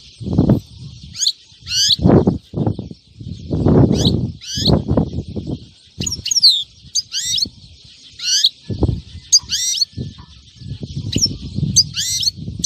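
Caged European goldfinch calling: short, sharp twittering chirps in quick clusters over a steady high hiss. Louder low rustles and thumps break in several times.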